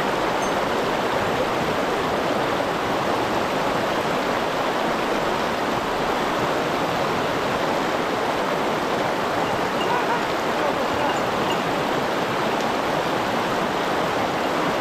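Rushing water of a fast mountain stream, a steady, unbroken flow.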